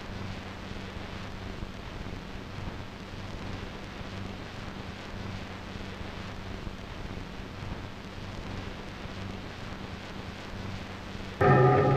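A steady hiss-like noise with a low hum under it. Near the end, loud music with sustained, ringing chord tones cuts in suddenly.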